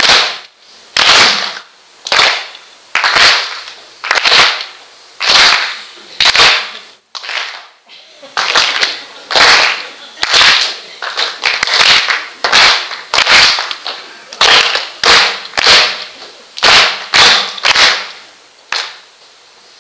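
Loud, sharp hand claps in unison, about one a second and coming a little faster in the second half, each ringing in the hall.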